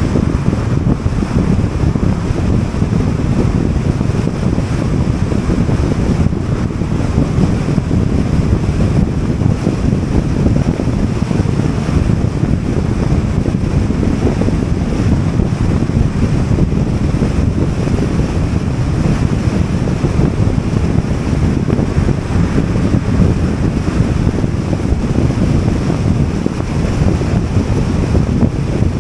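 Steady rush of wind and road noise from a car driving at highway speed, with wind buffeting the microphone.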